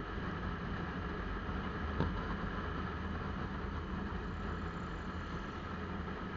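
Motorcycle engine running steadily at road speed, heard from a camera mounted on the bike, with road noise and one sharp click about two seconds in.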